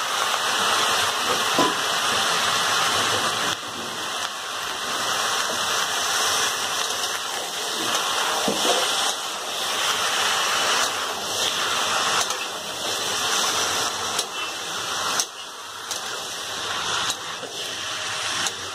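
Raw chicken pieces sizzling loudly in hot mustard oil with onions in a kadhai over full flame, a steady hiss that dips a little now and then. The steel ladle scrapes and clicks against the pan as the chicken is stirred.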